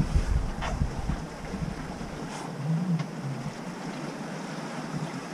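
Wind and waves rushing past a sailing yacht under way, a steady wash of sea noise with a low rumble near the start.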